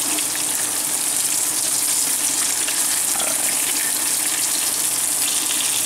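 Breaded pollock fillets frying in oil in a nonstick pan: a steady, even sizzle.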